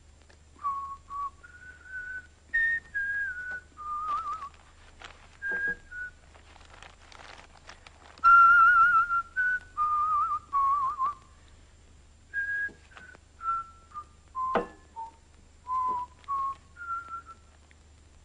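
Someone whistling a slow tune in short, wavering phrases. A single sharp knock sounds about two thirds of the way through.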